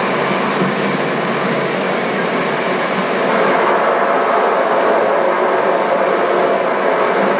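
Ukraina-5 16 mm film projector running: the steady, fast mechanical clatter of its film transport.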